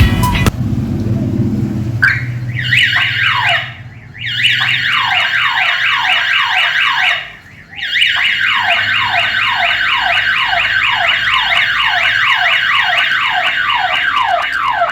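Burglar alarm siren sounding after being triggered: a fast run of falling electronic whoops, about three a second, starting about two seconds in and cutting out briefly twice.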